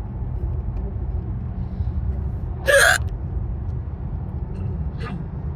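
A woman's single sharp hiccup about three seconds in, over the steady low rumble of a car's cabin while driving.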